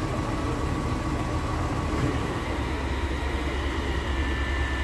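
Fire truck engine running steadily, driving its pump to feed water into the hoses: a low rumble that grows stronger about halfway through, with a faint steady whine above it.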